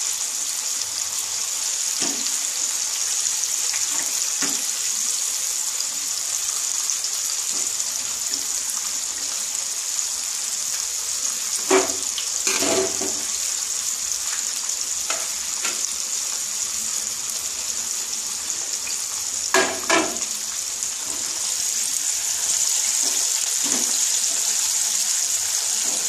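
Breaded chicken pieces deep-frying in hot oil in a kadai, a steady sizzling hiss while they cook through on a low flame before turning brown. A few short sharp knocks about halfway through and again about three-quarters through.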